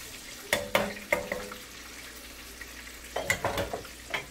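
A sauce being whisked in a cast-iron skillet, with a few sharp utensil knocks and clinks: three about half a second to a second in, and more after three seconds. Underneath is a steady sizzle of fish frying in oil in a pot on the stove.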